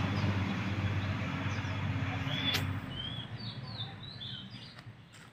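A motor vehicle's engine hum fading away over the first three seconds, then small birds chirping in a run of short calls, with one sharp click midway.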